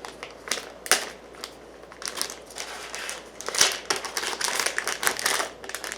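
Plastic packaging crinkling and crackling in irregular bursts as a tightly sealed package is worked open by hand.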